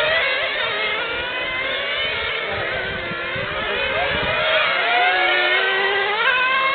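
Several radio-controlled cars' small high-revving motors whining at once, each rising and falling in pitch as they accelerate and brake around the track.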